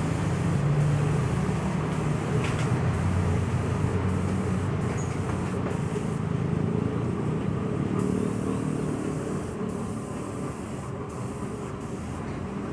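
A steady low motor or engine hum that fades a little toward the end.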